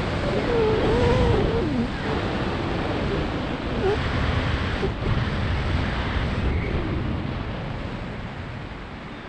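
Wind rushing over the microphone of a camera flying under an open parachute canopy: a steady rough noise that eases off slightly near the end.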